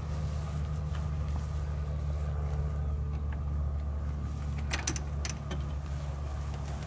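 Light clicks and rattles of a microlight trike's frame and wing rigging as it is pushed round by hand on grass, coming in a short cluster about five seconds in, over a steady low hum.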